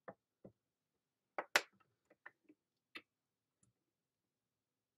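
Light plastic clicks and taps from handling a stamp positioning tool as its clear hinged lid is brought down and pressed onto the stamp, about eight in all, the loudest about one and a half seconds in.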